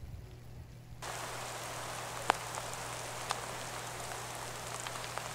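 Steady rain falling, getting louder about a second in, with two sharp ticks about a second apart.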